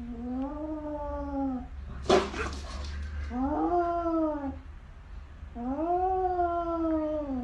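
Cat's defensive threat yowls at its own reflection, taken for a rival cat: three long, low drawn-out yowls, each rising and then falling in pitch, with a short sharp hiss about two seconds in.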